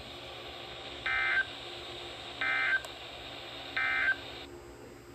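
Emergency Alert System end-of-message signal: three short, identical bursts of SAME digital data tones, about 1.4 seconds apart, marking the end of the alert. They play over a steady radio hiss that cuts off near the end.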